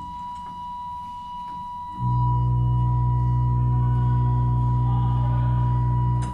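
Pipe organ playing slow, sustained chords over a high held note. A deep pedal note comes in about two seconds in, is held, and cuts off near the end.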